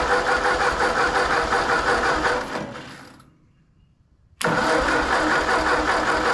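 Ford 8N tractor's four-cylinder flathead engine turning over on its starter in two tries. The first try fades away about three seconds in, and after a short silence the second starts abruptly. The battery is running low.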